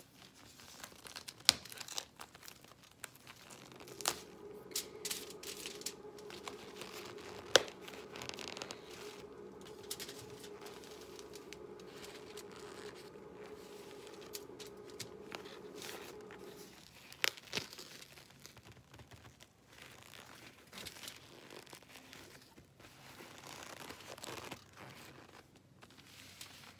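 Cardboard of a cornstarch box and its tape being torn and crumpled off a block of oven-baked cornstarch: irregular crinkling and tearing with a few sharp snaps.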